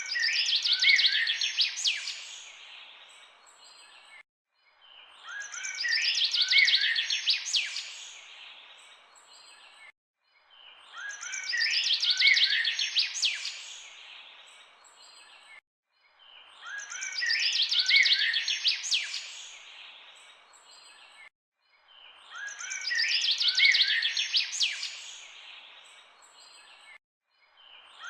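Birds chirping and singing: a short recording looped, repeating about every six seconds. Each pass opens with a dense flurry of quick chirps and trills, fades, and cuts off abruptly into a brief silence before the next.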